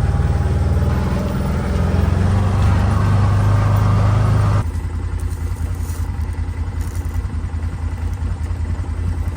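A motor engine running steadily with an even low hum, louder for the first four and a half seconds and then dropping suddenly to a lower, rougher level.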